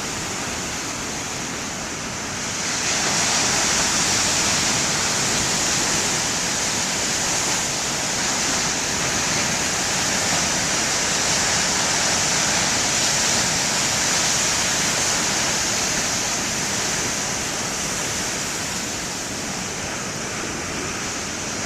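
Heavy ocean surf, a continuous rushing wash of big breaking waves that swells louder about three seconds in and eases slightly near the end.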